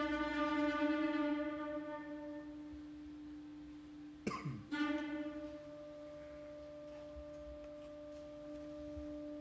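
Instrumental music from the performance's score: one long, held note rich in overtones that slowly fades over the first few seconds. About four seconds in, a brief sharp sound with a quickly falling pitch interrupts it, and then the note resumes and holds steady.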